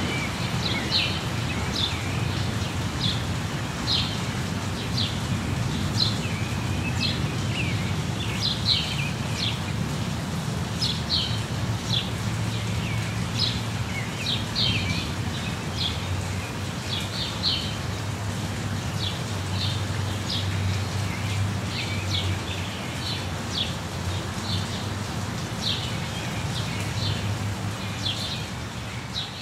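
Steady rain falling, with small birds chirping over it: many short, high chirps come every second or so throughout. A low steady rumble runs underneath.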